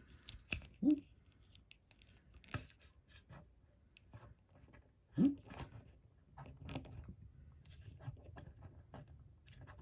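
Plastic joints of a blank-body action figure clicking and scratching as its arms and legs are bent into poses, with scattered small ticks throughout. Two brief voice sounds come about a second in and about five seconds in.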